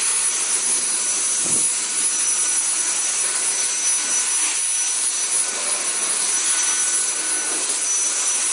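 Dyson cordless stick vacuum running steadily as its floor head is pushed over a tiled floor: a rush of air with a steady high whine. A soft low knock about a second and a half in.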